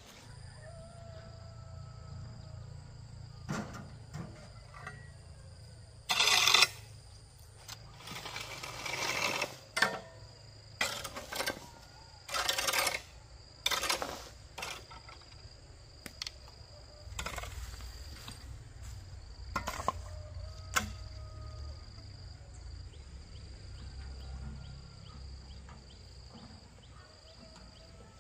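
About a dozen irregular scraping and chopping strokes of manual outdoor work with a hand tool, some short and some drawn out for about half a second. A steady high insect drone carries on behind them.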